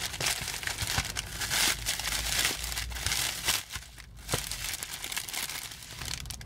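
Bubble wrap and a thin clear plastic bag crinkling and rustling as they are pulled open by hand, in a run of fine crackles.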